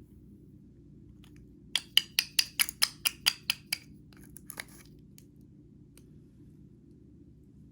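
A quick run of about ten sharp clicks or taps of hard objects, about five a second, followed by a few fainter clicks.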